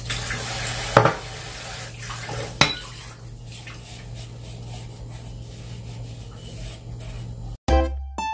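Tap water running into a glass being rinsed at a kitchen sink, with a sharp clink of glass about a second in and another a little later; the water stops about three seconds in, leaving faint dish clatter over a steady low hum. Plucked ukulele-like music starts abruptly near the end.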